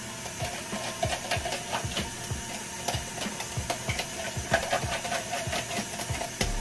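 Thick chicken and cream-of-chicken-soup mixture simmering in a frying pan, its bubbles popping irregularly, over a faint steady hiss of steam.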